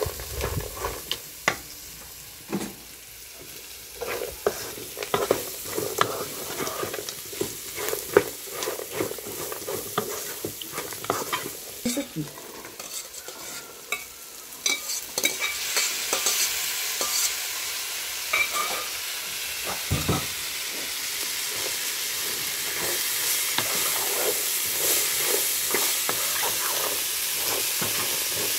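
Wooden spoon stirring and scraping diced sausage, bacon and onion frying in a pan, with many short knocks against the pan over a light sizzle. About fifteen seconds in, cooked pigeon peas are tipped in from a steel pot and a louder, steady sizzle takes over while the stirring goes on.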